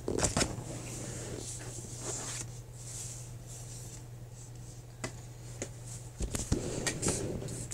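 Handling noise from playing with dollhouse toys and a flashlight: scattered small clicks, knocks and rustles, in a cluster at the start and again in the last couple of seconds, over a steady low hum.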